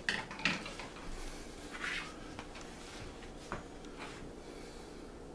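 Kitchen handling noise: about half a dozen light knocks and clicks as raw chicken strips are put into a container and utensils, among them a wire whisk, are moved about on the counter.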